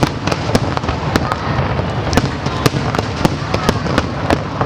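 Fireworks show in full swing: a dense, continuous rumble of bursting shells with many sharp cracks, several a second.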